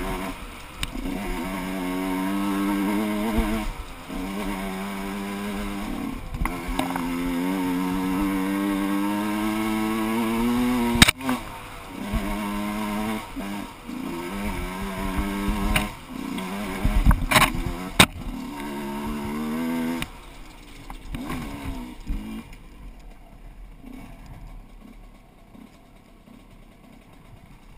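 Gas Gas EC 125 two-stroke enduro bike's engine pulling up a dirt track. Its pitch climbs steadily in each gear, then drops off as the throttle closes and it shifts, with a few sharp knocks over the rough ground. After about twenty seconds the engine falls away and fades.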